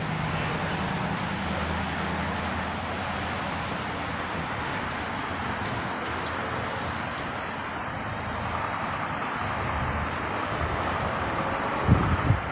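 City street traffic: cars running and passing on a wet road, with a low engine hum in the first few seconds. A few low thumps about twelve seconds in are the loudest sounds.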